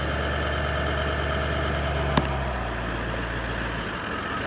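Toyota 200 Series Landcruiser's V8 engine running steadily at low revs, with a single sharp click about two seconds in.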